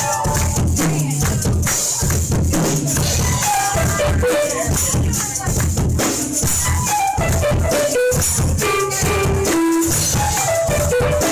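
Live band music from bass, guitar and keyboards, with hand percussion shaken steadily on top. A melody line falls in steps twice.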